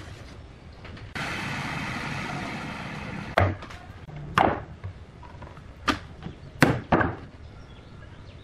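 A claw hammer striking a star-shaped template laid on a pine tabletop, five sharp irregular blows, the last two close together. Before them, a steady hiss lasting about two seconds.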